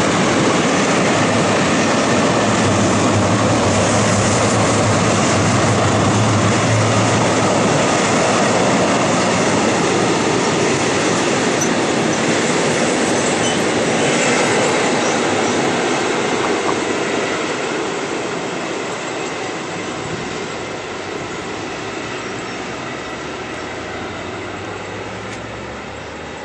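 A mixed freight train's wagons rolling past on a curved track, with a steady rumble, wheel-on-rail noise and some faint wheel squeal. From about the middle it fades gradually as the end of the train moves away.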